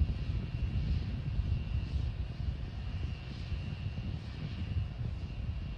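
Low, steady rumble, with a faint high whine that swells and fades about once a second.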